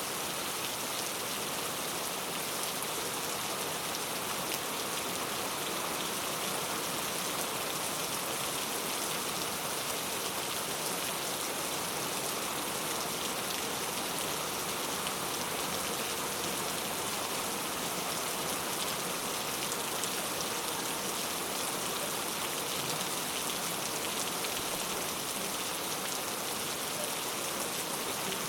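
Steady heavy rain falling, an even hiss of drops without pauses or thunder.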